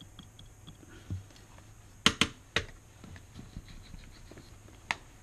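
Hand tools handled on a workbench during small-scale soldering work: a soft thud, then three sharp clicks close together and a single click near the end.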